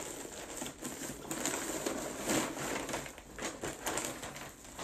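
Plastic mailer bag being opened and handled: irregular crinkling and rustling of thin plastic, in stop-start handfuls.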